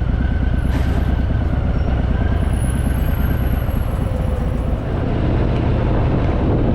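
Harley-Davidson Fat Boy's V-twin engine running in slow, heavy traffic, a loud steady rumble with a fast low pulsing. The sound dips briefly a little before five seconds in, then comes back slightly louder.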